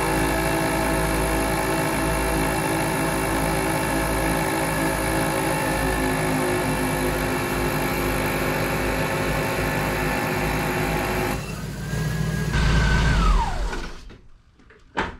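ARB CKMAT12 twin 12-volt air compressor running steadily under load while inflating a tire, a hum with many overtones. About 13 seconds in it winds down with a falling whine and stops, followed by a short click.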